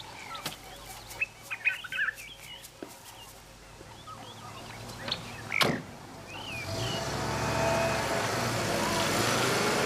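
Birds chirping and calling, then a sharp bang about five and a half seconds in. After it, a Volkswagen Transporter van's engine runs, growing louder and then holding steady.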